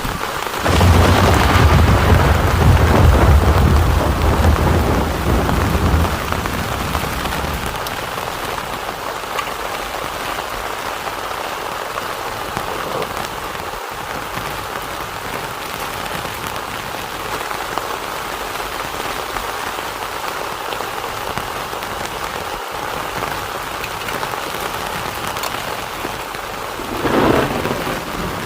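Heavy rain falling steadily. A long, deep rumble of thunder starts about a second in and dies away over several seconds, and another swell of sound comes near the end.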